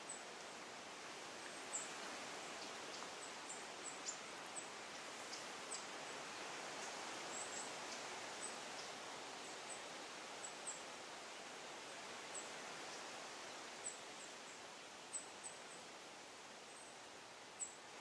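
Faint forest ambience: a steady hiss, with scattered short, very high chirps and a few light clicks.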